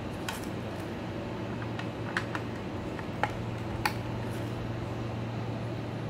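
A few short plastic clicks and taps as an Ethernet cable's RJ45 plug is handled and pushed into a router's port, over a steady low hum.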